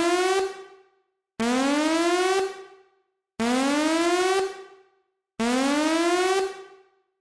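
Electronic whooping alarm tone, each whoop sweeping up in pitch, holding briefly and fading, repeating evenly about every two seconds.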